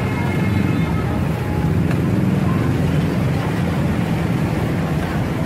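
Steady low rumble of street noise, like running engines and traffic.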